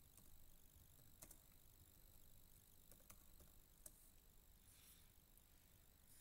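Near silence: faint room hiss with a few soft, scattered computer keyboard key clicks.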